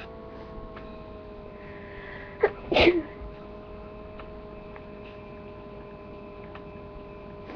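A person sneezing once, about two and a half seconds in: a short sharp catch, then the louder main burst.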